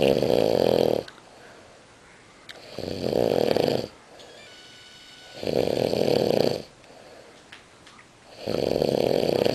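A man snoring loudly: four long snores, each about a second long, coming at a steady pace about three seconds apart, with quiet breathing between them.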